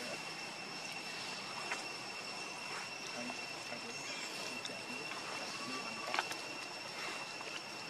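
A steady high-pitched insect drone holding one pitch throughout, with a few faint sharp clicks scattered through it.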